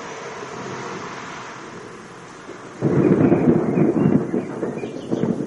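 Thunder rumbling low and slowly dying away, then a sudden loud crackling peal of thunder about three seconds in that keeps on rumbling.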